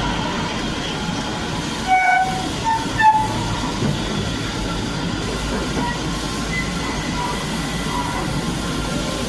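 CNC lathe running steadily during turning, a constant mechanical noise with a low hum, with a few brief high squeaks about two to three seconds in.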